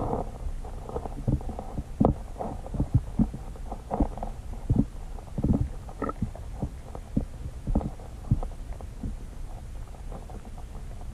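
Muffled underwater sound picked up by a submerged camera in a pond: a low rumble with irregular soft knocks and clicks, a few every second.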